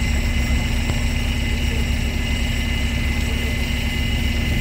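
A red London double-decker bus moving off from a stop, with a steady hum: a high whine over a low rumble.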